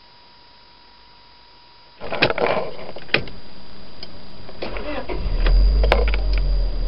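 Honda StepWGN's 2.0-litre four-cylinder engine being started: a few sharp clicks from the key and ignition about two seconds in, then the engine catches about five seconds in, revs up briefly and settles to idle.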